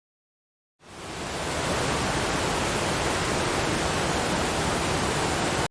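A steady rushing noise like static, spread evenly from low to high, that fades in about a second in, holds level, then stops abruptly.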